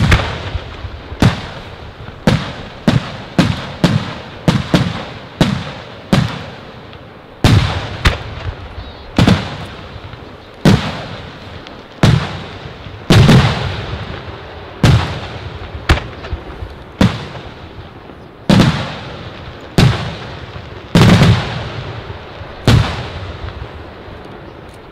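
Aerial firework shells bursting one after another in a series of loud bangs, each trailing off in an echo. The bangs come quickly in the first several seconds, then settle to about one every second or so.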